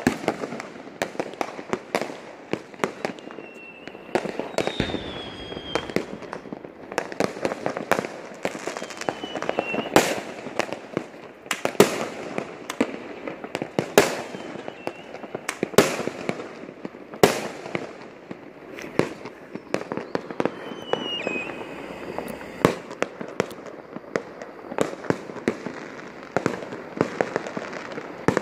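Many fireworks bursting at once: a dense, irregular run of sharp bangs and pops over a constant crackle, with a few short whistles among them.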